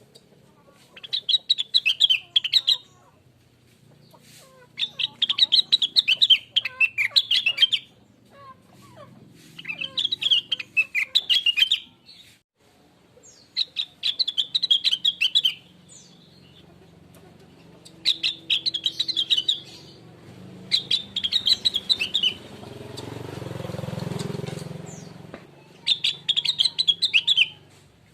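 Rengganis (cucak wilis) leafbird singing in repeated phrases of rapid, high, twittering notes, each phrase lasting one to two seconds with short gaps between. Near the end, a rushing noise swells and fades under the song.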